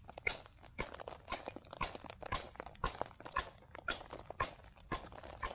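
Beavercraft adze chopping into a log in quick, regular strokes, about two a second, each a short knock of the blade biting the wood as a bowl hollow is carved out.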